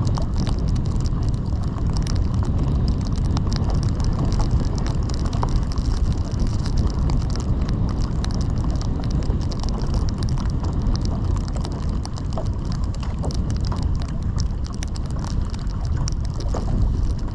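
Steady wind buffeting the microphone: a heavy low rumble with many small ticks over it.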